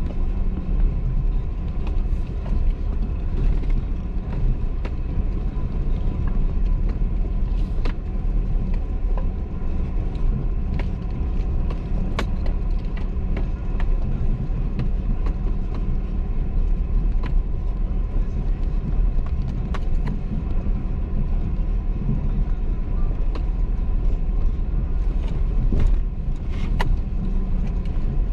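Off-road vehicle driving: a steady engine and drivetrain rumble, with scattered sharp knocks and rattles throughout.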